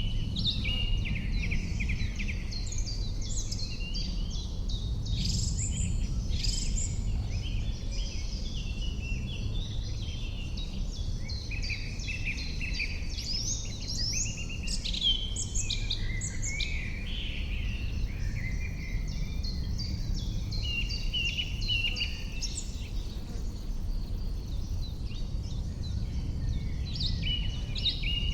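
Several songbirds singing at once, a dense run of overlapping chirps and trills, over a steady low rumble.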